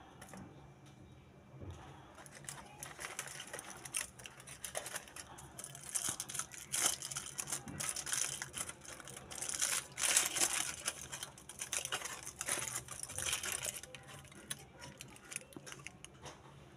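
Aluminium foil wrapper of a milk chocolate bar crinkling as hands unfold it: irregular crackling that starts about two seconds in and dies down near the end.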